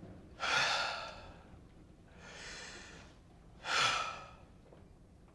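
A man taking slow, deep breaths for a doctor's stethoscope check. Two louder breaths with sudden starts come about half a second and about four seconds in, with a softer, longer breath between them.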